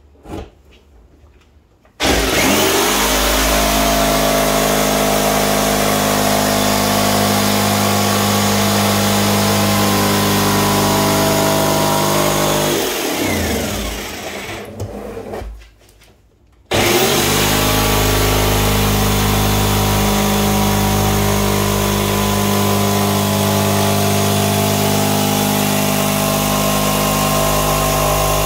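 Corded jigsaw with a coarse-toothed blade cutting through the wall of a plastic 55-gallon barrel, starting up about two seconds in and running steadily. Around the middle the motor slows with a falling pitch and stops for about a second while the barrel is repositioned, then starts again and keeps cutting.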